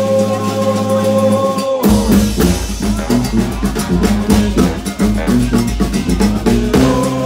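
New Orleans brass band playing live: saxophones, trumpet, trombone and sousaphone. The horns hold a long chord, then about two seconds in the drums kick in under a busy horn riff, and near the end the horns settle on another held chord.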